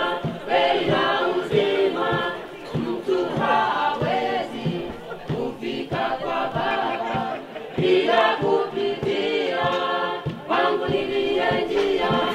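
A group of voices singing together in chorus over a steady beat.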